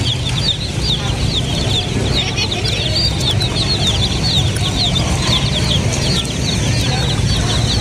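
A crowd of baby chicks peeping constantly: many short, high peeps that slide downward, overlapping one another, over a steady low hum.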